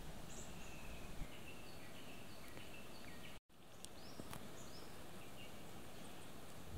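Bush ambience: a steady breeze hiss with many short, high chirping calls of birds and frogs scattered through it. A split-second dropout about halfway through.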